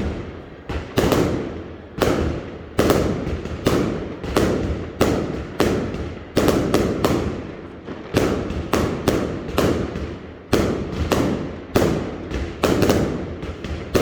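Aerial fireworks exploding in a steady, irregular barrage, about one or two sharp bangs a second, each trailing off in a rumbling echo.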